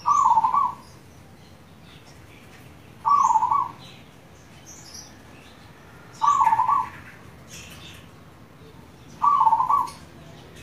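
Zebra dove (perkutut) cooing in full song. It gives four short coo phrases, each well under a second and about three seconds apart.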